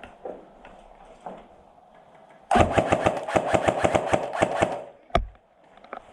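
Airsoft gun firing a fully automatic burst of about two seconds, a rapid even rattle of shots, followed by a single shot about half a second later.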